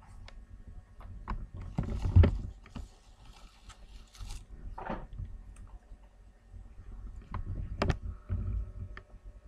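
Small dogs, a shih tzu and a black chihuahua puppy, growling and scuffling as they play-fight. The sound comes in flurries, loudest about two seconds in, again near five seconds, and around eight seconds, with a few sharp knocks.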